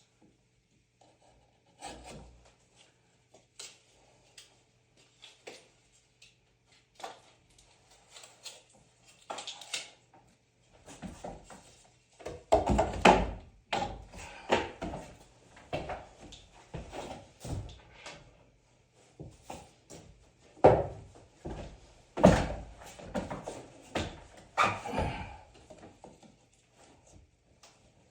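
Irregular knocks, thuds and scraping of wood being handled and fitted during work on a wall, sparse at first, then heaviest about halfway through and again a few seconds before the end.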